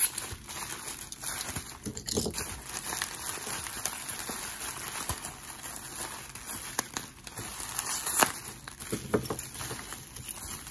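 Plastic bubble-wrap pouch crinkling and rustling as hands handle and dig through it, with scattered small sharp clicks, the loudest about two seconds in and again about eight seconds in.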